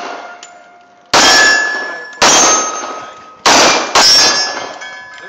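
.45 ACP pistol firing four shots, the last two in quick succession, each followed by the ringing of a struck steel target.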